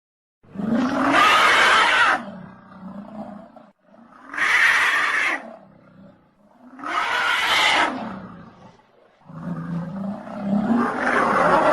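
Stock dinosaur roar sound effects: four loud roars one after another. Each of the first three lasts about two seconds and trails off into a lower growl. The fourth is longer and runs on past the end.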